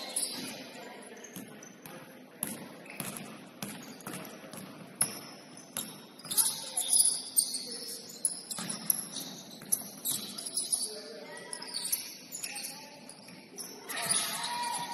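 Basketball game sounds on a hardwood gym floor: a ball bouncing in irregular thuds, sneakers squeaking in short high chirps, and players' voices calling out now and then.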